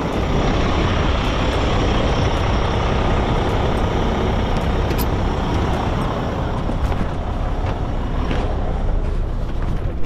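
Strong gusting wind carrying dust, buffeting the microphone with a loud, rough rumble.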